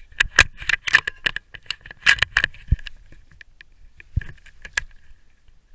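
Handling noise from a rifle and its night-vision scope: a quick run of sharp clicks and small rattles, busiest over the first couple of seconds and again about four seconds in, with a couple of dull knocks.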